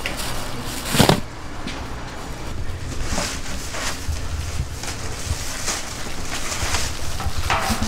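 Food-prep handling sounds: plastic sheeting and disposable gloves crinkling as hands work over covered trays of fillings, with one sharp knock about a second in, over a low steady background hum.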